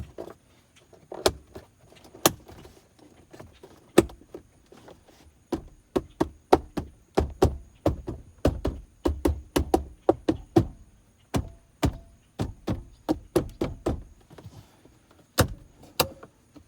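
Plastic interior trim panels of a truck's center console being pressed and tapped back into place: a long run of sharp, irregular clicks and knocks, thickest in the middle stretch.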